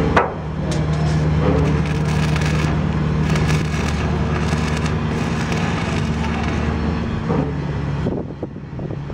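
Arc welding: a steady electrical hum from the welding current with dense crackling from the arc, tailing off near the end.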